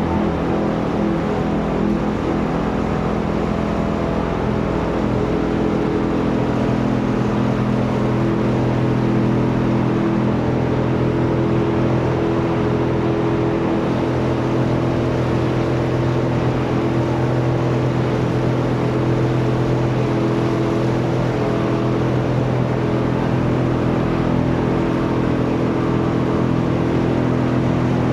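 Corn, cotton and rice stalk shredding machine running steadily, a continuous mechanical drone whose pitch shifts slightly about six seconds in.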